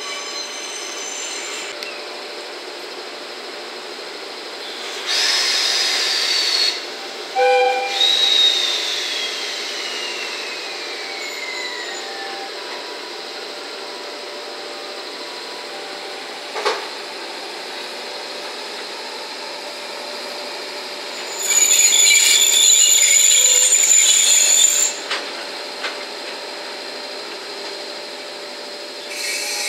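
EF66 electric locomotive and coupled HD300 hybrid shunter moving slowly along yard track: steady running noise, with a loud hissing burst about five seconds in and a longer one about three-quarters of the way through, and a high tone gliding slowly downward after the first burst.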